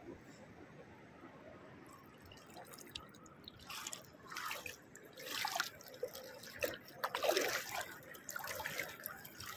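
Feet wading through shallow seawater: irregular sloshing splashes that begin about two seconds in and grow louder and closer together toward the end.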